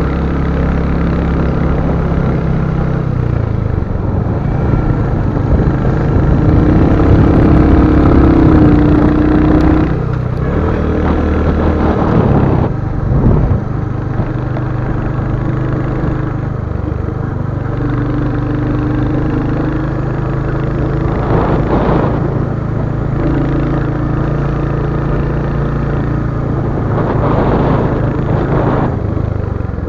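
Royal Enfield Hunter 350's single-cylinder engine running while riding, its note shifting up and down in steps several times.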